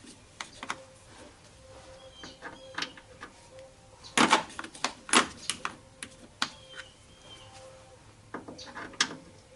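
Irregular metallic clicks and knocks of hand tools working on a car door, as the bolts holding its door latch are taken out. The clicks are heaviest about four to five seconds in.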